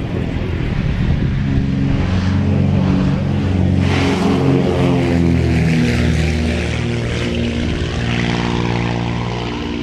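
Let L-200 Morava light twin taking off, its two six-cylinder piston engines and propellers at full power. The sound grows louder to a peak near the middle and then eases slightly.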